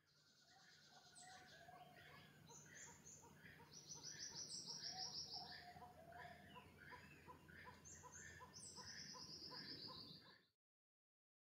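Faint tropical forest chorus of several birds calling: short notes repeated about twice a second, with a long, fast high trill twice. It fades in and cuts off near the end.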